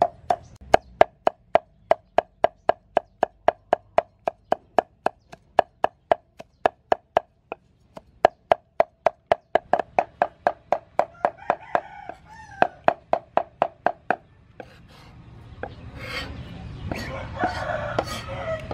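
Cleaver chopping soaked dried sweet peppers on a thick wooden chopping board: a steady knocking of about four strokes a second. A rooster crows once in the background about two-thirds through, and near the end the chopping turns irregular over a louder rustling noise.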